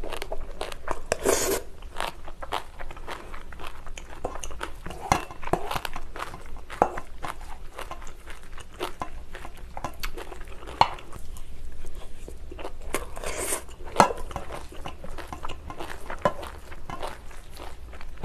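Close-up eating of bibimbap: steady chewing and crunching with many small sharp clicks, and a couple of brief scraping rushes, one about a second in and one near the end.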